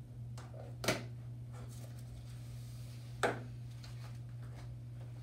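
Two short, sharp knocks about two and a half seconds apart as small objects are set down on a tabletop, over a steady low hum.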